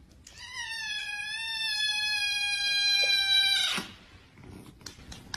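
Kitten giving one long meow of about three and a half seconds, held at an almost steady pitch that drifts slightly lower before it stops suddenly.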